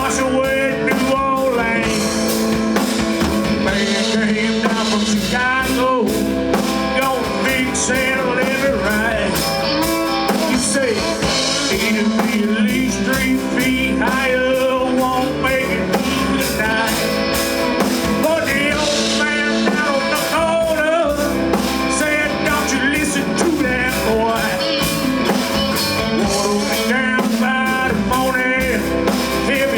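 Band playing a blues-rock instrumental stretch, a lead line with bending notes over guitar, bass and drum kit with steady cymbal strokes.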